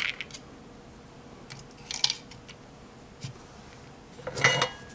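Small plastic and metal parts being handled and set down on a workbench: a few light clicks and taps, then a louder metallic clatter with a short ring near the end.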